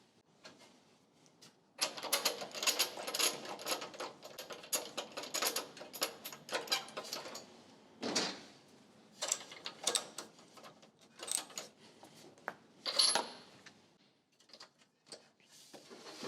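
Hand tools at work refitting the spark plug in a Honda small engine: a run of rapid metallic clicking for about five seconds, then scattered clinks and knocks of metal on metal.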